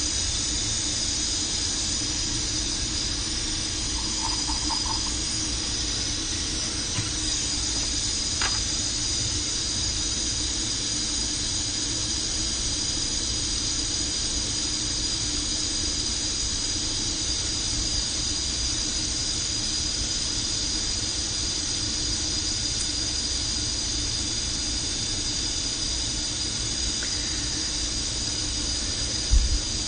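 Hot air rework station blowing a steady hiss of hot air with a fan hum, used to reflow a part on a Nintendo Switch logic board. A few faint short beeps come about four seconds in.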